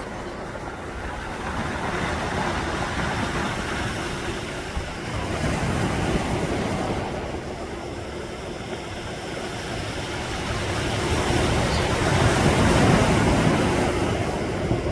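Sea waves breaking and washing on the shore. The surf swells and falls off in slow surges every several seconds, loudest near the end.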